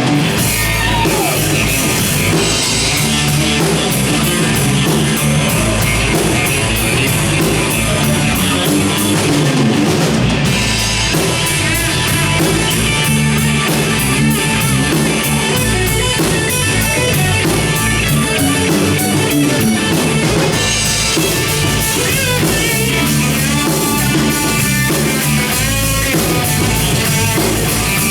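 Live country-rock band playing an instrumental break with drum kit and electric guitar, loud and steady throughout.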